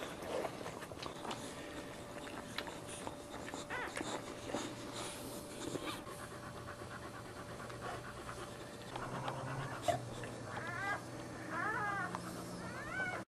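Boxer dog panting, with several short, high rising-and-falling whimpers in the last few seconds, typical of newborn puppies squeaking.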